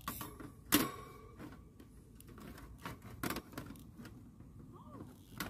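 Thin metal parts of a small folding camp grill clinking and knocking together as it is fitted together, a handful of sharp knocks, the loudest under a second in with a brief metallic ring after it.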